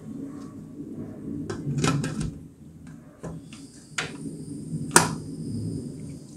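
Prestige pressure cooker lid being fitted and closed onto the metal pot, with several metal clanks and scrapes about a second and a half in and sharp clicks later, the loudest about five seconds in. The pongal bubbles underneath.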